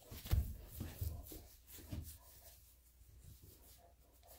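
A hand scratching a dog's back fur: soft, scratchy rasping, with a few low bumps in the first two seconds as the phone brushes against the fur.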